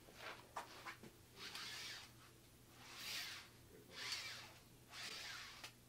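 Faint rubbing and scuffing of a tubular hoop support being handled and turned in the hands, in a few soft brushes about a second apart.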